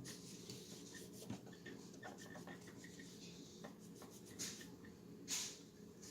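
Dry cleaning patch rubbed over a Glock pistol part to wipe off excess solvent: faint scratchy wiping strokes, with two louder strokes near the end.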